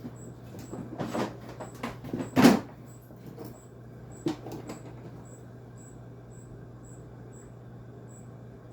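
A handful of clicks and knocks from tools and parts being handled, the loudest about two and a half seconds in and one more a little after four seconds, over a steady low hum.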